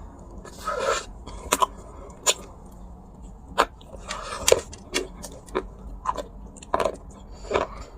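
Dry clay crunching and cracking in a series of sharp, irregularly spaced crunches, with longer crumbling crackles about a second in and again about four seconds in.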